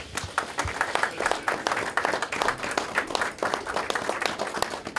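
A small crowd applauding, many hands clapping at once.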